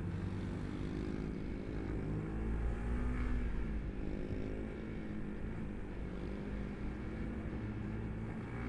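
Motorcycle engine running steadily while riding at road speed, its pitch rising and falling gently, over a rush of wind noise.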